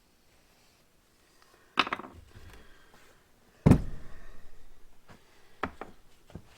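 Two loud knocks about two seconds apart, the second a heavy thud, followed by a few lighter clicks: metal tools or parts being set down and handled on a work surface.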